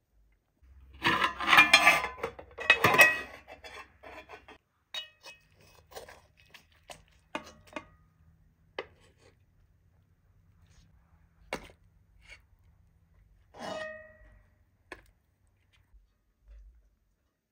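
Metal spoon scooping and scraping cooked rice across a metal serving tray, loudest in a burst of scraping about a second in, then scattered clinks of a metal ladle against pot and dish. Near the end one clink rings on briefly like struck metal.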